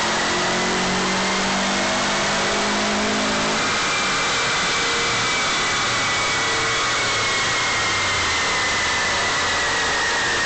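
Stage 2 Subaru WRX's turbocharged flat-four running hard on a chassis dynamometer during a power run. A high whine climbs for the first few seconds, then slowly falls as the run winds down.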